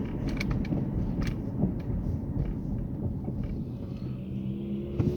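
Car on the move: a steady low road and engine rumble, with a pitched engine note starting to come up near the end.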